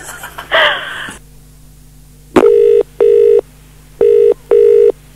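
British telephone ringing tone heard down the line: two double rings (ring-ring, pause, ring-ring) of a call that has been dialled and is not yet answered.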